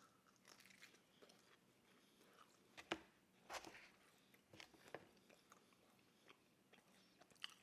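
Close-miked mouth sounds of someone eating pizza: soft, wet chewing with scattered smacks and clicks.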